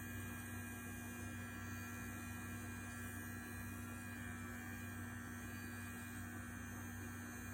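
Manscaped Lawn Mower 3.0 electric trimmer running with a steady hum while trimming hair.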